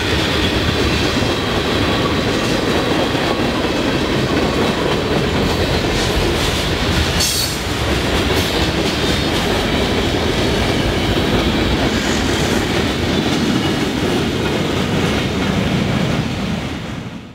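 Loaded freight cars of a passing train rolling by at close range: steady wheel-on-rail noise from tank cars, covered hoppers and boxcars, with a brief high squeal about seven seconds in. The sound fades out at the very end.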